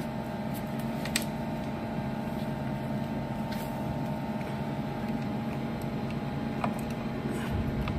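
Steady hum from a switched-on MX LP801 power amplifier on the bench, with a few faint clicks as a multimeter probe is handled.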